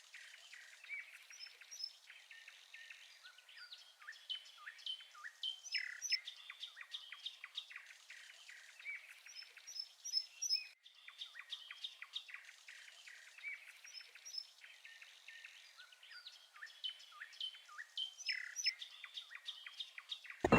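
Songbirds singing in a morning chorus: many overlapping chirps, trills and short whistled phrases, with a brief break a little past halfway.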